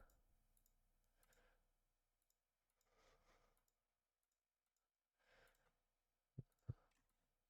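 Near silence: room tone, with two faint computer mouse clicks near the end.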